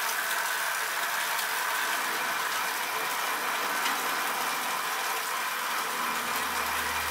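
Steady mechanical whirring of road bikes spinning on stationary trainers: drivetrains and trainer rollers running with a faint ratcheting edge. A low hum joins about six seconds in.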